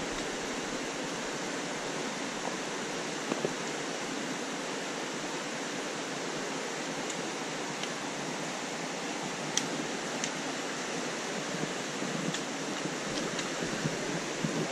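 Steady rush of flowing water, with a few faint clicks and taps scattered through.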